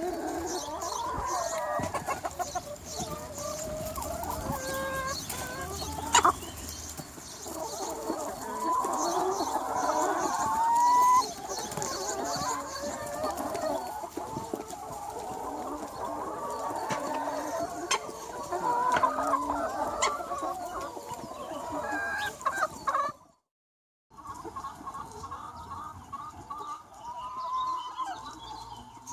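Large flock of free-range hens clucking and calling continuously, many birds overlapping. The sound drops out completely for under a second about two thirds of the way through, then the flock noise resumes.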